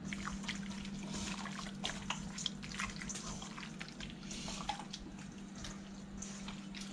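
Wet squishing and smacking of hands working seasoned raw fish slabs around a stainless steel bowl, in many short, irregular squelches and clicks. A steady low hum runs underneath.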